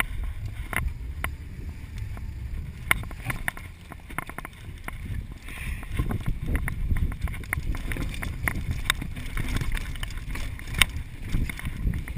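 Mountain bike riding down a dirt trail: a steady low rumble of wind on the microphone and tyres on dirt, with frequent sharp clicks and rattles as the bike jolts over bumps.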